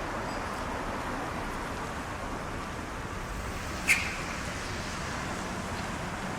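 Steady background road-traffic noise, with one short sharp sound about four seconds in.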